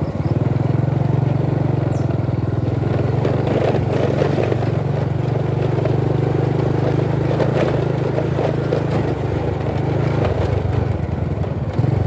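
Motorcycle engine running steadily while riding in traffic, with a constant low hum and road noise.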